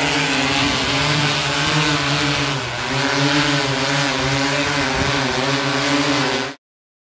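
Six-rotor spraying drone flying low overhead: a loud, steady propeller hum whose pitch wavers up and down as the motors adjust, with a slight dip a little before the halfway point. It cuts off suddenly near the end.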